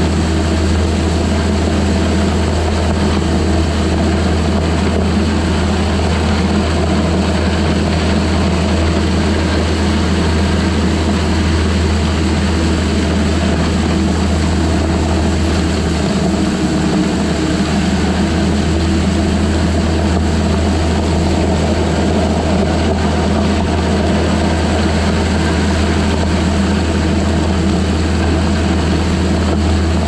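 Skid steer's diesel engine running steadily under load while its grader attachment blade pushes and rolls loose crushed gravel.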